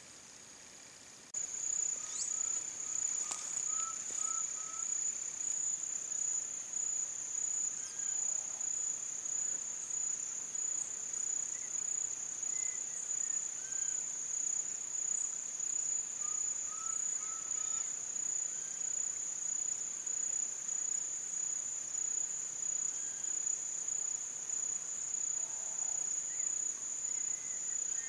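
A steady, high-pitched insect drone that starts suddenly about a second in and holds without a break, with faint short runs of bird notes now and then.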